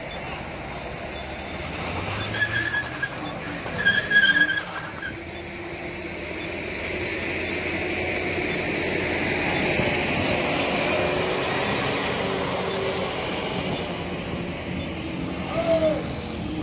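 Heavily loaded cargo truck stuck on a steep climb: its diesel engine strains while the drive tyres spin on the road, a rush of noise that rises and peaks about two-thirds of the way through. Two short high squeals come a few seconds in. The truck has lost traction after the driver shifted down too late.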